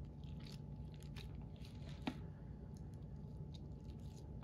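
Faint, scattered squishing and sticky smacks of raw sausage meat being pressed by hand into a cut pork roast, with one sharper click about halfway through.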